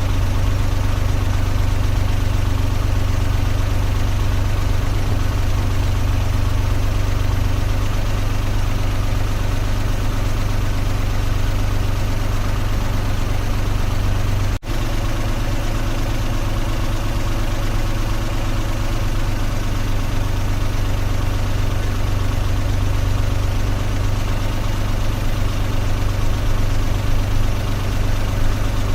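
Car engine idling steadily, with a brief momentary break in the sound about halfway through.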